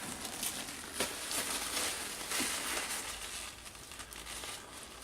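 Plastic packaging crinkling and rustling as it is handled and opened, a continuous crackle made of many small crackles.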